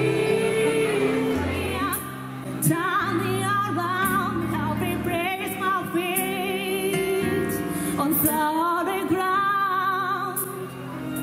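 A woman singing solo into a microphone with strong vibrato, over an instrumental accompaniment of sustained low notes.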